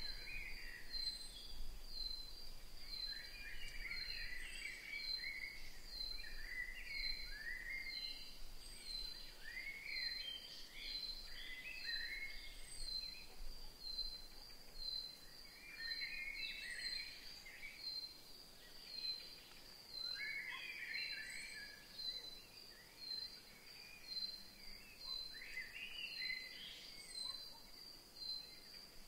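Outdoor nature ambience: birds chirping in short, irregular bouts over a steady high-pitched chirring that pulses evenly, about three beats every two seconds.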